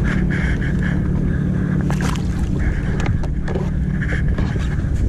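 A boat's engine running steadily, with a few sharp knocks or clicks over it.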